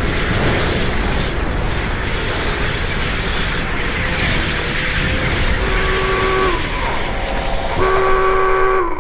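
Train running with a steady loud rumble, and two whistle blasts about two seconds apart in the second half. Each blast lasts about a second and slides down in pitch as it stops, and the second is the louder.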